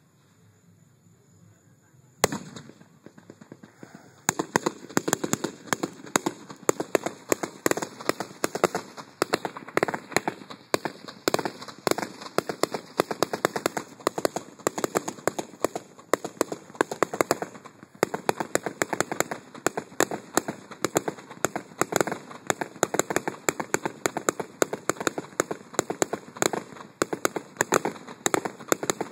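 Fireworks: one sharp bang about two seconds in, then from about four seconds on a dense, rapid crackling of many small pops that goes on without a break.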